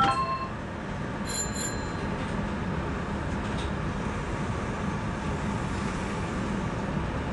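Semboku Rapid Railway commuter train pulling slowly away from the platform, heard from the driver's cab: a steady low running rumble and motor hum. A brief high-pitched double beep sounds about a second and a half in.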